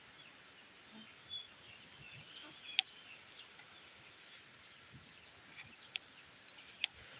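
Faint background with birds chirping, and a few sharp clicks, the loudest about three seconds in.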